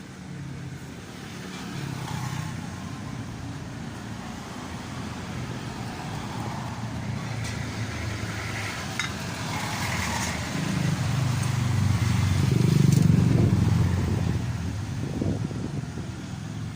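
Honda TMX125 Alpha's single-cylinder four-stroke engine running after a top overhaul. It gets louder about two-thirds of the way through, then eases off near the end, with a few light clicks in the middle.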